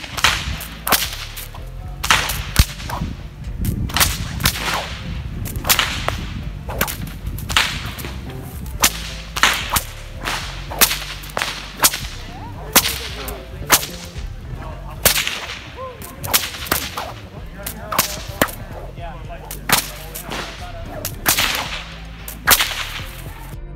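Bullwhip cracking over and over: sharp cracks about once a second, irregularly spaced, some in quick pairs.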